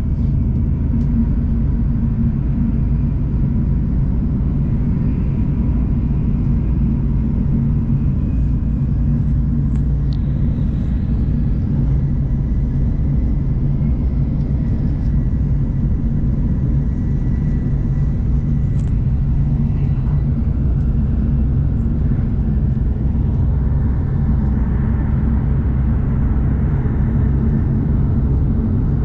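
Shinkansen bullet train running, a steady low rumble heard from inside the passenger cabin, with a faint thin whine coming and going above it.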